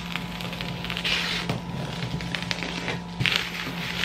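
Bubble wrap and plastic packing crinkling and crackling as hands pull it off a cardboard box, in irregular rustles that are loudest about a second in and again near the end, over a steady low hum.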